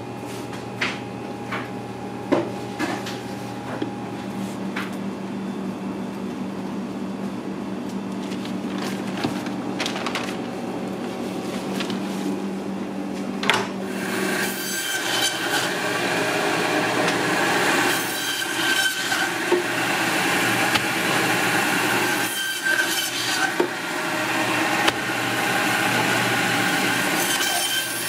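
Meat bandsaw cutting through a beef rib section's bones: a loud, steady rasp that starts about halfway through. Before it there is a steady low machine hum with a few clicks.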